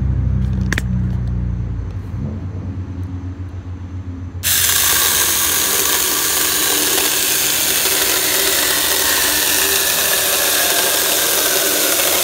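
Saker 4-inch cordless mini electric chainsaw cutting through a wooden 2x4: the motor runs with a low hum at first, then about four and a half seconds in the chain bites into the wood and a loud, steady sawing sets in.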